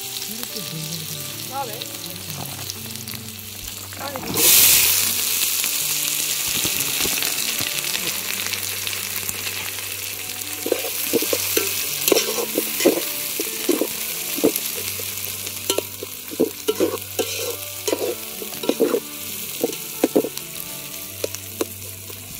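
Hot oil sizzling in an aluminium pot. About four seconds in, a loud burst of sizzling as sliced onions go into the oil, settling into a steady sizzle. In the second half a spatula scrapes and knocks against the pot again and again as the onions are stirred.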